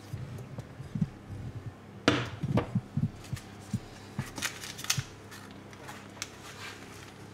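Silicone spatula knocking and scraping against a glass mixing bowl as a thick pistachio filling is scraped out into a tart dish. The loudest knocks come about two seconds in, with a few sharper scraping strokes around four to five seconds, then the sound softens to faint spreading scrapes.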